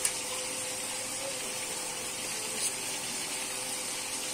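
Raw chicken pieces sizzling in hot oil in a pot, a steady hiss, with two light clicks of the wooden spatula against the pot, one at the start and one about two and a half seconds in.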